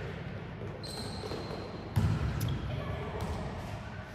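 A volleyball impact about two seconds in, a single sharp smack that echoes through a large sports hall, over the steady background noise of the hall.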